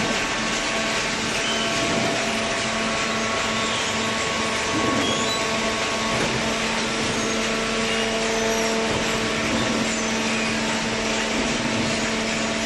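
Hydraulic cardboard baler running: a steady machine hum with several held tones and a constant hiss.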